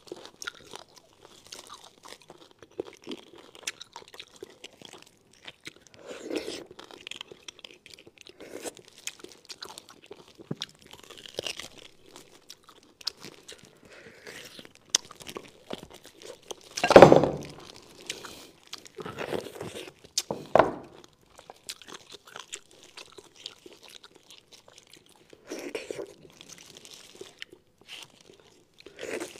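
Close-miked eating sounds of a person sucking and chewing spicy beef bone marrow: many small clicks and smacks, with one louder burst a little past halfway.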